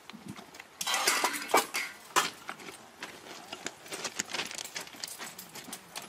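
Irregular metallic clinks and knocks, with a dense, louder cluster between about one and two seconds in, then sparser taps.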